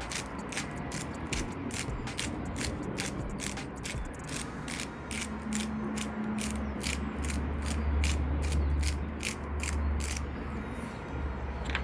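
Hand-twisted grinder mill grinding sea salt: a long run of quick ratcheting clicks, several a second, that stops shortly before the end.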